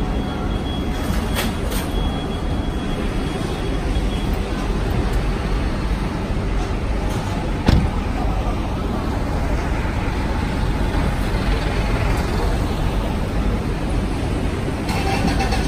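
City street traffic noise, a steady rumble of passing road vehicles, with a single sharp knock about eight seconds in.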